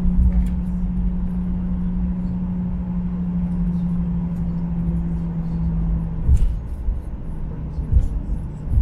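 Cabin noise inside a Boeing 737-800 airliner during taxi: a steady low hum with one strong tone that drops slightly in pitch about six seconds in, over a low rumble, with a few short low thumps near the end.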